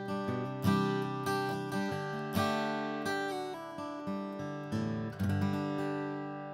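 Atkin Essential OM acoustic guitar played with a Dunlop Primetone 0.73 mm pick: a quick run of picked notes and chords. About five seconds in, a strummed chord is left to ring and slowly fade.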